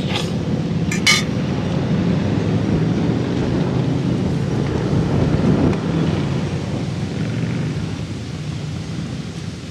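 Engine running with a steady low rumble, swelling and rising in pitch briefly about five seconds in. Two sharp clinks sound near the start.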